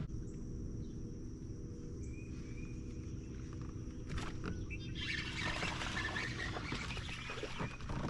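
Birds chirping over a steady low hum. About five seconds in, a louder, busier rustling noise comes in.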